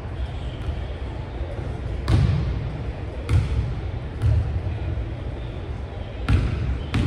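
Basketball bouncing on a hardwood gym floor: a handful of separate bounces a second or so apart, each with a short echo in the large hall.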